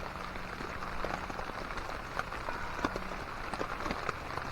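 Steady rain falling, with many individual drops ticking sharply on a tarp overhead.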